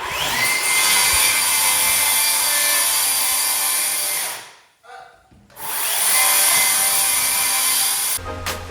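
An electric power tool working lumber in two long runs: its motor whines up to speed at the start of the first, which lasts about four seconds, and after a short pause a second run lasts about two and a half seconds. Music starts right at the end.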